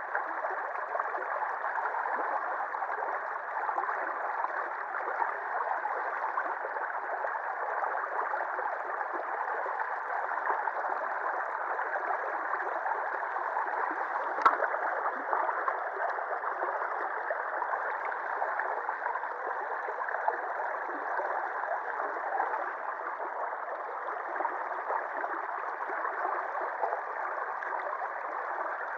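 River water rushing and babbling past a concrete ledge, a steady sound. A single sharp click comes about halfway through.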